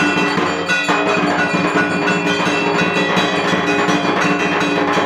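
Ringing bells and percussion playing steadily, thick with overlapping ringing tones over a regular beat of strikes.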